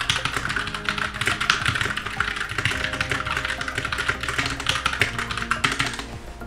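Fast touch-typing on a computer keyboard, a dense, rapid stream of key clicks at about 100 words a minute, stopping about a second before the end.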